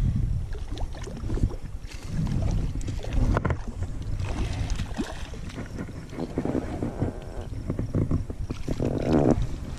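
Water splashing and irregular knocks and rustles as a hooked trout is played beside an inflatable raft and scooped into a landing net, over a low rumble of wind on the microphone.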